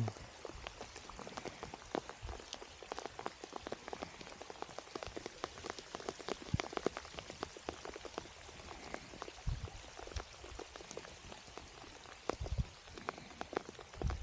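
Rain falling, with many irregular drop ticks close by and a few dull low thumps in the second half.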